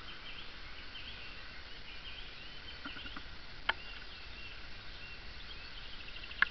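Songbirds singing in the background: many short twittering phrases and whistles, overlapping without a break. Three quick ticks come a little before halfway, a sharp click follows just after, and a louder sharp click comes at the very end.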